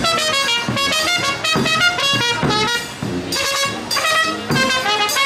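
Music: a brisk melody of short held notes, changing pitch several times a second.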